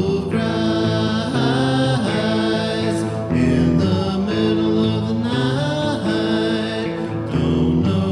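Music: a song with several singing voices in harmony, holding long notes that glide from one to the next.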